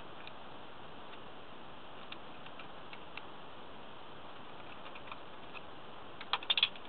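Small metallic clicks and taps from handling wires and a screwdriver at a metal electrical box, scattered and light at first, with a quick run of louder clicks about six seconds in, over a steady hiss.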